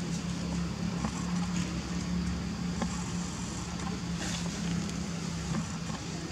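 A motor vehicle engine running steadily, heard as a constant low hum.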